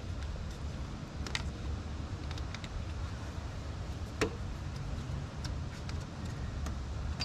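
A few scattered light clicks and taps of hand work on the drive belt and tools in the engine bay, the sharpest about four seconds in, over a steady low rumble.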